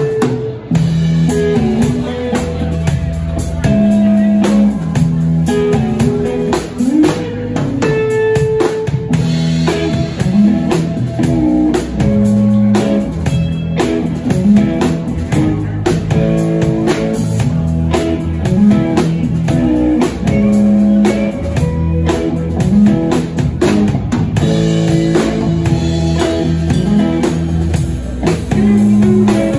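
Live band playing an instrumental jam: electric guitars over a moving bass line and a drum kit, loud and steady throughout.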